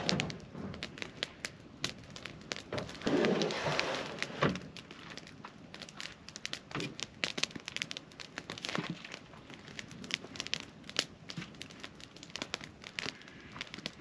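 Wood campfire crackling, with frequent sharp pops and snaps. A short burst of rustling about three seconds in.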